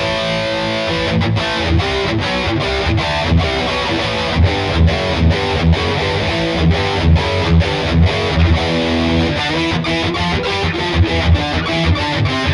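Ibanez SZ520QM electric guitar played with a distorted amp tone: a rhythmic riff with short regular stops about twice a second.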